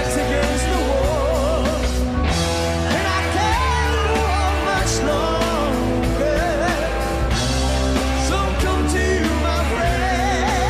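Hard rock band playing live, with a sung vocal line wavering in pitch over continuous bass and drums.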